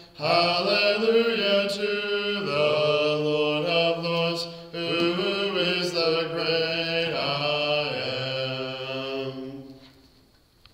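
A single man's voice singing the last line of a hymn unaccompanied, holding long notes, and finishing about nine and a half seconds in.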